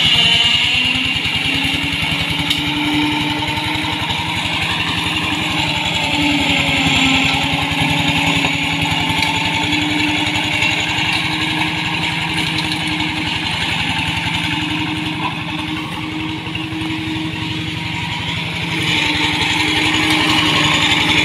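Engine of a two-wheel hand tractor rigged as a grass mower, running steadily as it works through the undergrowth, with a fast even firing rhythm and a wavering hum over it. It grows louder near the end.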